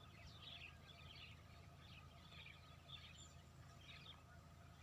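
Faint birdsong: small birds giving short, scattered chirps over a low steady hum.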